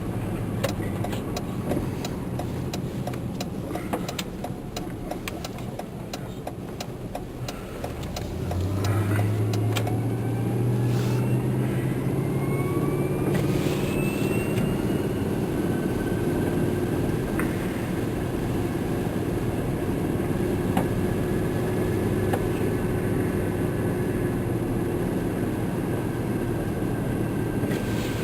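Vehicle engine heard from inside the cabin while driving on a snowy road: it idles or crawls with scattered light clicks, then about eight seconds in it accelerates, its pitch rising for several seconds before settling into a steady drone.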